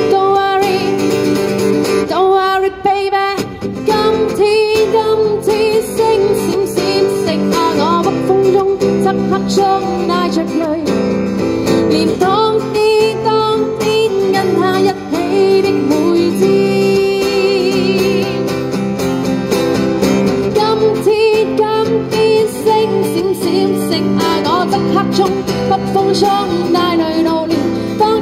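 A woman singing a pop song to a strummed acoustic guitar accompaniment, the singing and guitar continuing without a break.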